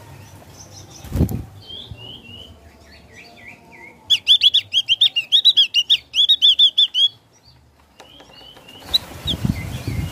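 Javan grey-throated white-eye (opior jawa) singing: a run of short falling chirps, then a fast, loud string of high notes lasting about three seconds. Its wings flutter once about a second in, and there is more fluttering near the end.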